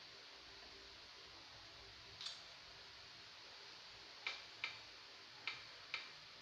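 Faint key-press clicks from an ASUS Android tablet's on-screen keyboard during typing: one tap about two seconds in, then four quick clicks between about four and six seconds in, over a faint steady hiss.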